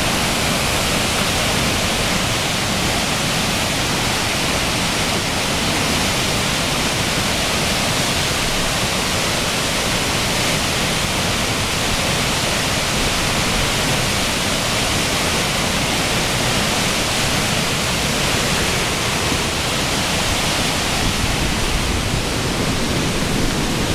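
Floodwater of a storm-swollen mountain brook rushing past in a loud, steady wash of water noise.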